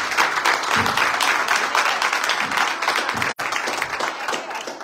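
Congregation applauding, a dense patter of hand claps, with a brief break a little after three seconds; it dies away near the end.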